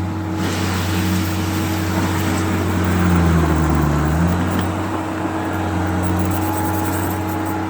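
Engine running steadily with a low hum. A little after three seconds in it gets louder and its pitch dips briefly, coming back up about four seconds in.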